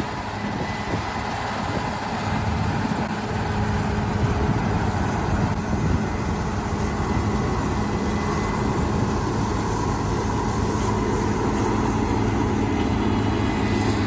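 Case IH combine harvesting soybeans: the engine and threshing machinery running steadily under load, the noise growing somewhat louder over the first few seconds as the machine comes closer.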